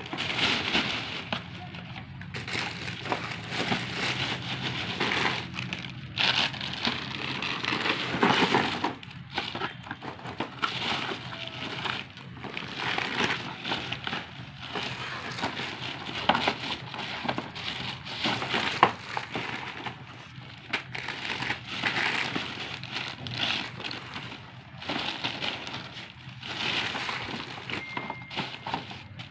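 Thin plastic carrier bag crinkling and rustling in irregular bursts as hands move cardboard firework boxes around inside it.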